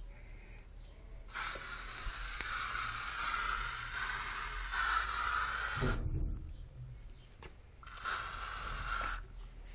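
Aerosol insecticide can spraying: one long hiss of about four and a half seconds, then a second short burst of about a second near the end.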